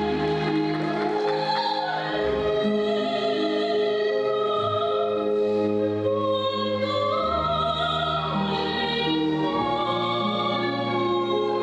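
A woman singing opera in a trained classical voice, long held notes with vibrato moving slowly in pitch, over sustained instrumental accompaniment.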